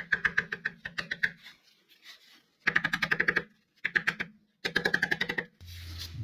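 Rapid light taps of a soft-faced mallet driving a new crankshaft rear oil seal into its housing, struck through the old seal, in four quick runs of about ten taps a second. This is the new seal being seated evenly to the same depth all round. Near the end a low steady hum takes over.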